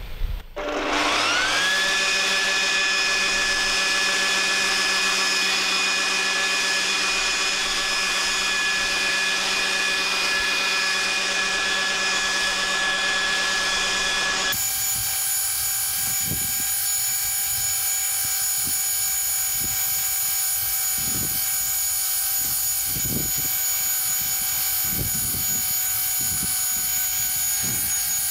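Ryobi ONE+ cordless battery leaf blower starting up with a rising whine about half a second in, then running steadily at full speed while blowing snow. About halfway through the whine jumps abruptly to a different steady pitch, with scattered low thumps under it.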